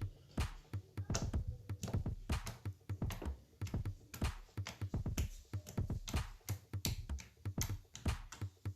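Background electronic music with a steady bass line, with many short, sharp clicks over it.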